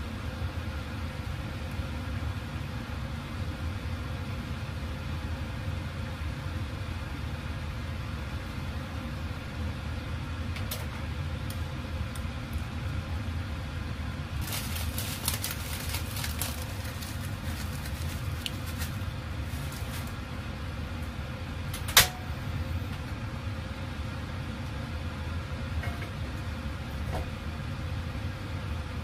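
Ladle and chopsticks clinking and scraping against an enamel saucepan as miso is dissolved into the soup: a quick run of clicks about halfway through and one sharp knock about three-quarters of the way in, over a steady low hum.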